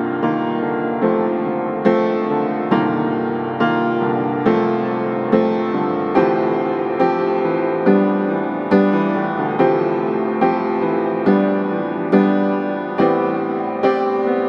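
Slow, gentle piano music, notes and chords struck in an even pulse a little more than once a second, each ringing and fading before the next.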